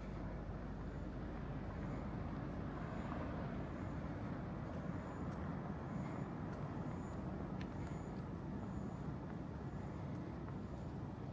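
Street traffic noise: a motor vehicle's engine and tyre rumble, steady with a slight swell through the middle.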